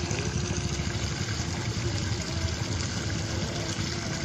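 Wind buffeting the microphone: a steady, ragged rumble with hiss and a faint steady hum underneath. It cuts off abruptly near the end.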